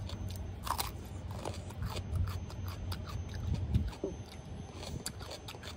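Close-up chewing of a bitten raw red radish: irregular crisp crunches and wet mouth sounds, over a low steady hum.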